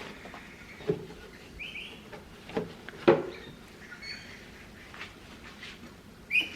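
Light knocks of objects being set down or handled, the loudest about three seconds in, with two short high chirps.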